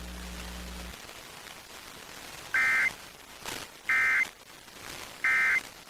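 Emergency Alert System end-of-message signal: three short bursts of raspy digital data tones, a little over a second apart. They mark the end of the test alert. A low hum cuts out about a second in, before the first burst.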